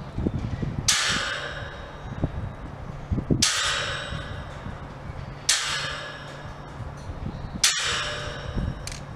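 Long-handled bolt cutters snipping the galvanized wire of a hog panel: four sharp metallic snaps about two seconds apart, each followed by the wire mesh ringing and dying away. A low wind rumble sits on the microphone underneath.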